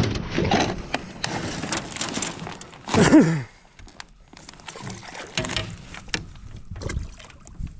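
Knocks and clatter against the aluminium boat hull and tackle as a smallmouth bass is swung aboard by hand without a net. A short, loud, falling exclamation comes about three seconds in.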